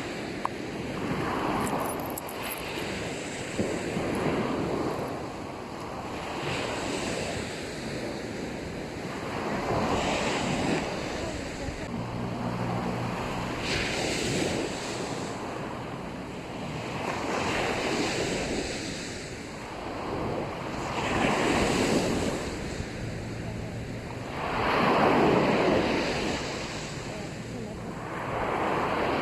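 Sea waves breaking and washing up the beach. Each wash swells and fades every three to four seconds, and the loudest comes about three-quarters of the way through.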